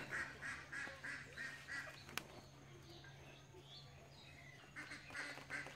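A bird calling in a quick series of short, repeated notes, about three a second: one run at the start and another near the end.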